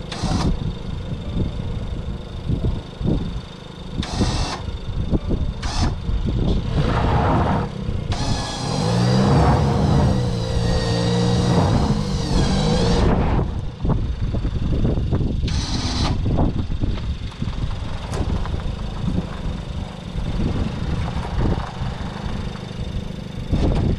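Electric winch pulling a car out of soft dirt where its wheels had dug in, the winch motor running under load. A low rumble runs throughout. For about five seconds near the middle a loud pitched whine bends up and down, with a few short hissing bursts around it.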